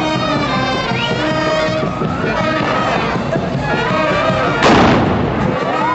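Band music playing, cut across about three-quarters of the way through by one loud gunpowder blast from a carnival rifle firing a blank powder charge, with a short echoing tail.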